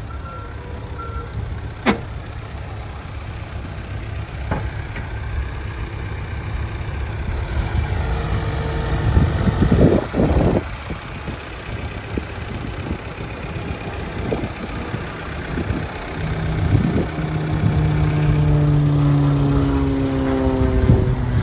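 Case 590 Super N backhoe's diesel engine running, its speed rising about eight seconds in and again from about sixteen seconds, the pitch easing down a little near the end. The machine's reversing alarm beeps for the first second, and there is a single sharp click about two seconds in.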